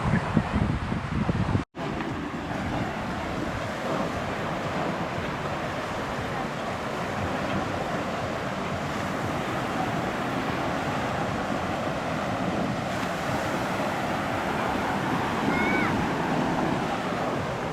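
Gulf of Mexico surf washing steadily onto the beach, with wind buffeting the microphone, gustier in the first two seconds. The sound cuts out for an instant a little under two seconds in, and a faint short chirp comes near the end.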